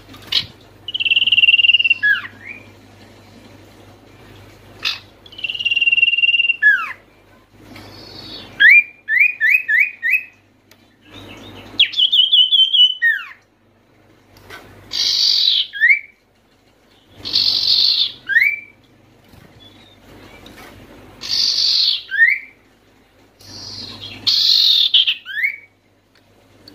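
Common iora (sirtu, cipoh) singing loud, repeated phrases every two to three seconds. Most phrases are a drawn-out whistle followed by a short sliding note. A few are a quick run of four or five notes.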